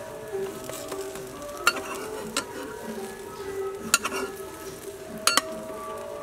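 Metal spatula working an egg omelette in a nonstick frying pan, scraping and giving several sharp clicks against the pan while the egg sizzles, over background music.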